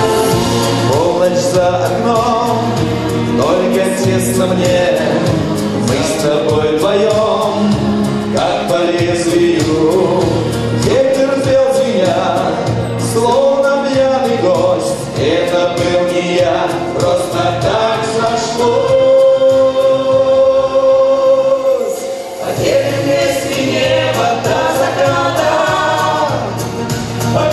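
A man and a woman singing a pop duet into microphones over recorded backing music; the man sings alone, with one long held note about two-thirds through, and the woman joins him in harmony near the end.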